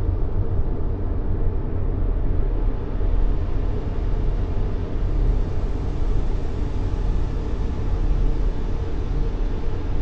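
Steady white-noise sleep track for babies, a deep, even rumble of noise with little high hiss, unchanging throughout.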